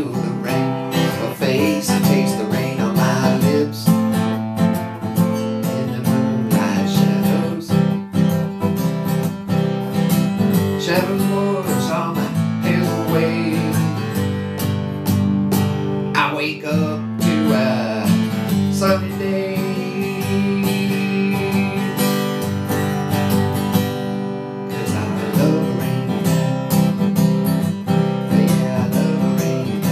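Solo acoustic guitar played with the fingers: an instrumental passage of a country tune, with picked notes and chords running on steadily.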